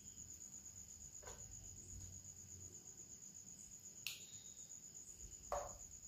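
Faint, steady, high-pitched pulsing trill throughout. A light click near four seconds in, as a spoon adds ginger-garlic paste to a stainless-steel bowl, and a short soft knock near the end.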